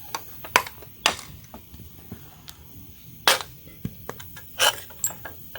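Sharp metallic clanks and knocks, about six of them at irregular intervals, as steel strut parts and tools are handled during strut disassembly.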